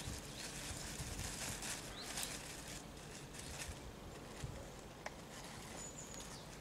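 Faint outdoor morning ambience in woodland: soft rustling and scattered light clicks, two sharper ticks past the middle, and one short high bird chirp near the end.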